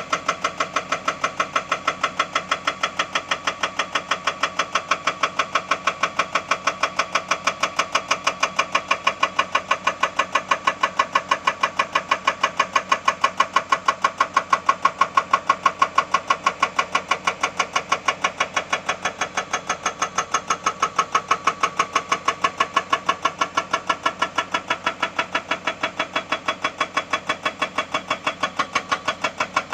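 Excavator-mounted hydraulic breaker hammering on rock in a rapid, even train of blows that keeps up without a break.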